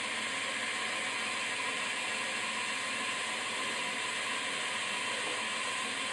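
A machine running steadily: an even whirring hiss with no breaks or knocks.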